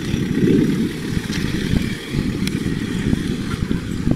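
Gusty wind buffeting the camera's microphone: a steady, fluttering low rumble.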